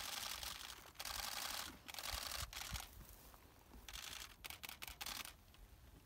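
Camera shutters firing in rapid continuous bursts, about five bursts of up to a second each, the last few shorter and choppier.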